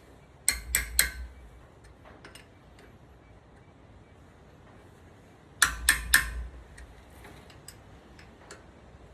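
Hammer striking metal, tapping the wheel bearing adjusting nut tight: two quick runs of three or four sharp blows with a short ring, about a second in and again near six seconds.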